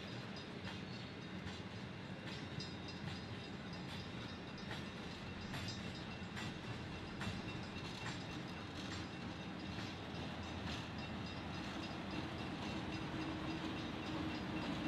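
V/Line passenger train hauled by an N-class diesel locomotive running past, its wheels clicking over the rail joints about once a second over a steady rumble and low drone.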